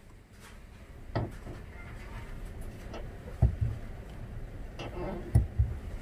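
A Nissan S14's clutch pedal is pushed down and let back up several times, squeaking, with a few knocks as it reaches its stops. The squeak probably comes from the pedal's return spring, which has no grease on it.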